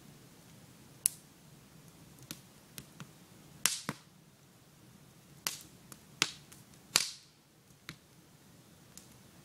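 Campfire crackling and popping: about ten sharp, irregular pops over a faint steady background, the loudest clustered through the middle.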